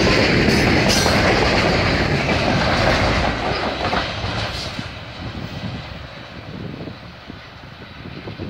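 Freight train's last cars, lumber-loaded centerbeam flatcars and a rear boxcar, rolling past close by with steel wheels clattering over the rail joints. About four seconds in the end of the train goes by, and the clatter fades away as it recedes.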